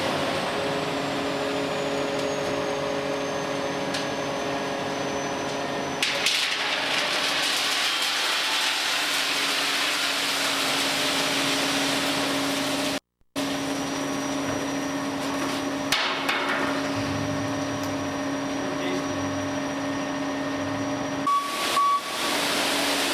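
Stucco crew's machinery: a small engine runs steadily with an even hum, broken by abrupt cuts and a brief dropout about halfway through.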